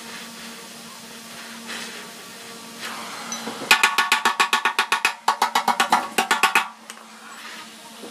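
Small hammer tapping rapidly on the heated steel seam of a Bajaj Platina fuel tank's replaced bottom panel, about nine sharp metallic blows a second in two runs with a short break between them, starting about three and a half seconds in. A low steady hum runs underneath.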